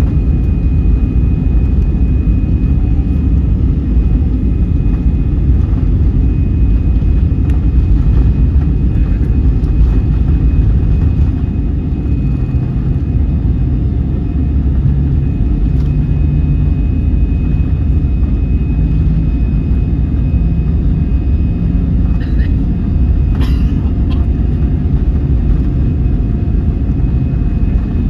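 Airbus A320's CFM56 jet engines running at high thrust for takeoff, heard inside the cabin as a loud, steady rumble with runway noise as the airliner accelerates down the runway. A short click comes about 23 seconds in.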